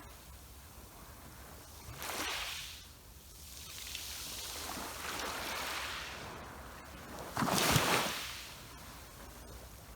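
Sea waves washing onto the shore in surges: one about two seconds in, a longer wash in the middle, and the loudest breaking near the end, over a steady low rumble.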